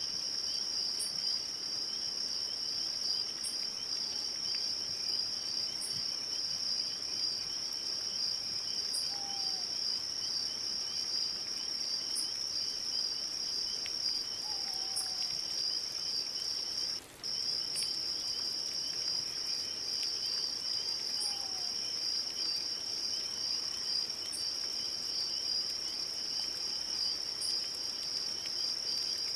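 Crickets chirring in a steady, continuous high-pitched chorus that drops out for an instant about 17 seconds in. Three faint, short falling calls sound under it, roughly every six seconds.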